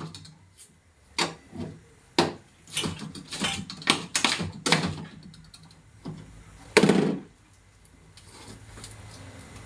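Irregular knocks and clunks from a two-door refrigerator's body and fittings being handled during disassembly, with one louder, longer clunk about seven seconds in.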